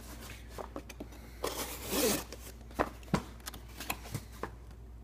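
Cardboard shipping box being handled and turned over: scattered scrapes, rubs and light knocks of cardboard, with a longer scraping stretch about two seconds in.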